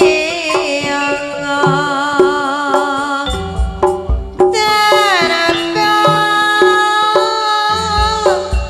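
Javanese campursari music played live: a singer holds long wavering notes, with slow downward glides, over kendang drum strokes.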